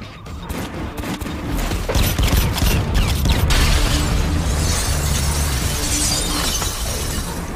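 Film action sound effects: a fast run of sharp cracks for the first few seconds, then a ceiling breaking apart with falling debris crashing and shattering. Low film score music plays underneath.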